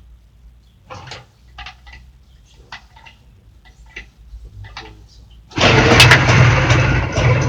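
A few faint clicks from a Jawa motorcycle being kicked over, then about five and a half seconds in the engine catches and runs loudly with a pulsing, knocking beat, the engine knock the machine is known for.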